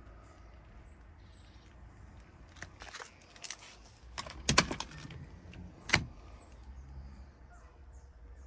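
Mercedes-Benz CLK coupé front seat being worked by hand: small clicks as the backrest release at the top of the seat is pulled, then sharper clunks as the seatback unlatches and tips forward, the loudest about four and a half and six seconds in.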